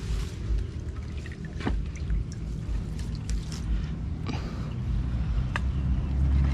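Water trickling and dripping as a wet fishing line and a collapsible net fish trap are hauled up out of a river by hand, with a few small clicks of handling scattered through.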